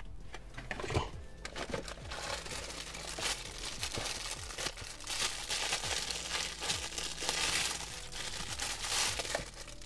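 Clear plastic bag crinkling and rustling as hands unwrap a twin 12-volt socket adapter from it, with many small clicks and a sharper tap about a second in.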